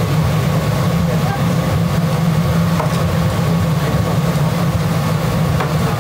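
Steady low mechanical drone of kitchen equipment at a large deep-frying station, with a few faint clicks.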